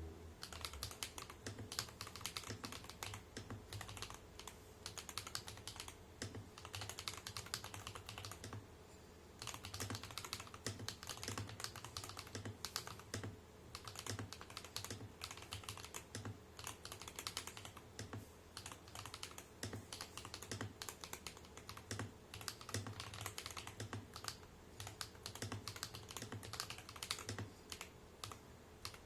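Fast, continuous typing on a James Donkey A3 75% mechanical keyboard with tactile switches and PBT dye-sub keycaps, with one short pause about nine seconds in.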